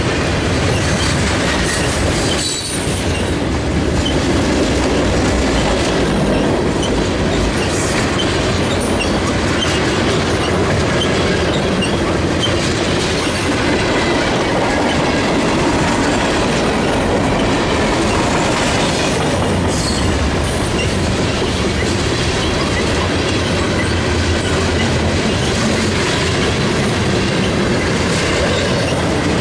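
Freight cars of a mixed manifest train rolling past close by: a steady loud rolling noise of steel wheels on the rails, with a few sharper clanks.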